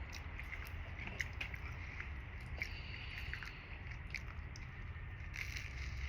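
A person chewing spaghetti and meatballs on toast close to the microphone: scattered wet mouth clicks and squishes over a steady low hum.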